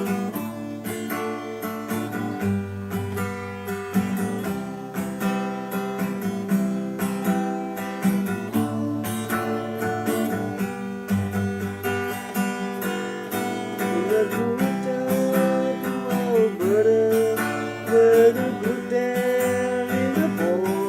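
Acoustic guitar strummed in a steady rhythm, playing the instrumental introduction of a folk song. A melody line that slides in pitch comes in over the chords in the second half.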